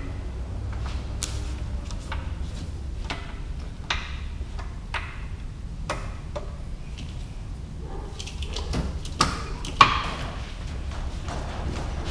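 A breaker bar and socket clinking against metal in an engine bay: irregular sharp metallic clicks and taps, the loudest knock near the end, over a steady low hum.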